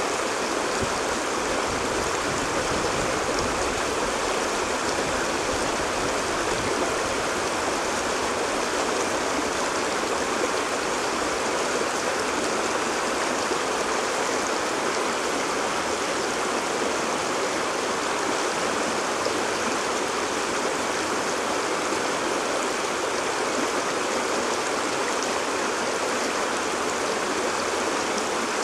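Shallow, rocky stream running fast over and around stones, its small riffles giving a steady rushing and splashing that does not change.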